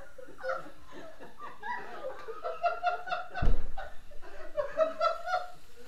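People laughing, two runs of quick repeated laughs, with one loud thump about three and a half seconds in.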